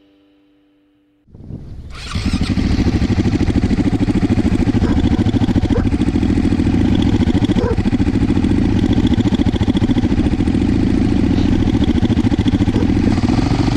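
Enduro motorcycle engine running steadily with a fast, even pulse, cutting in suddenly about a second in and holding a constant pitch and level.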